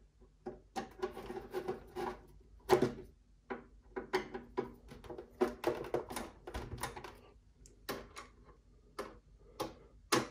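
Husky screwdriver tightening the screws of a monitor arm's metal VESA plate: an irregular run of clicks and scrapes as the bit turns in the screw heads.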